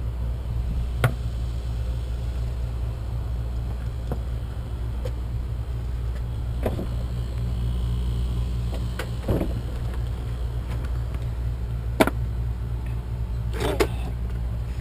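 Steady low rumble, like a motor running, with a few sharp clicks and knocks from parts being handled.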